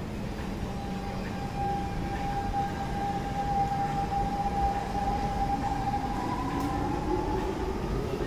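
Siemens GTO-VVVF traction inverter and motors of a C651 MRT train whining over the rumble of the carriage: a steady whine, then a second whine that starts rising in pitch near the end as the train gathers speed.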